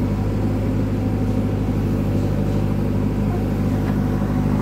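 JCB backhoe loader's diesel engine running steadily, a low even hum with no change in speed.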